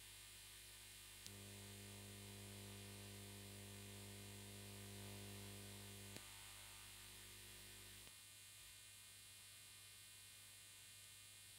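Near silence: a faint, steady electrical hum, with small clicks where the hum changes about a second in, around six seconds in, and about eight seconds in.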